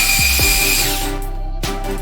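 Power drill motor spinning up with a rising whine, running for about a second, then winding down and stopping about one and a half seconds in, over background music.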